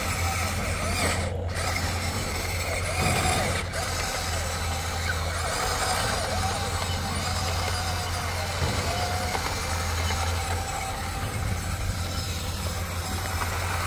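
Huina remote-control excavator's electric motors running, a steady low hum with a wavering whine that shifts in pitch as the boom and arm move.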